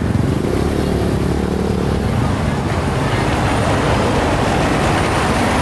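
Road traffic close by: a motor vehicle's engine running, with tyre and road noise that builds in the second half.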